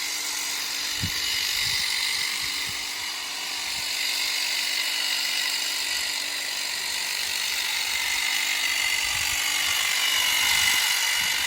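Ego cordless telescopic hedge trimmer running as it cuts a hedge: a steady high-pitched buzz that rises a little near the end.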